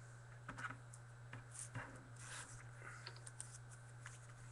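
Faint scattered clicks and brief light rustles of small desk handling, over a steady low hum.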